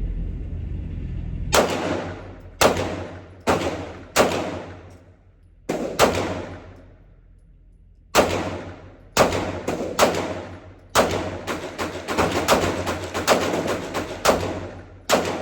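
A string of about fifteen 9 mm pistol shots from a Glock 19, fired at an uneven pace with a pause of about two seconds partway through, each shot followed by a ringing echo.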